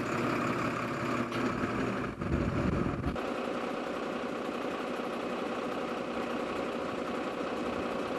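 A lorry's engine idling with a heavy low rumble. About three seconds in it cuts to a different engine running steadily with a mid-pitched hum.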